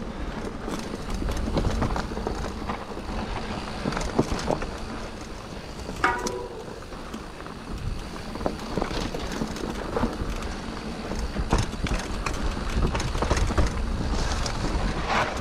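Scott Genius 950 full-suspension mountain bike being ridden along a dirt singletrack: a steady rumble of tyres and wind on the GoPro's microphone, with frequent clicks and rattles from the chain and frame over bumps. A short squeak comes about six seconds in.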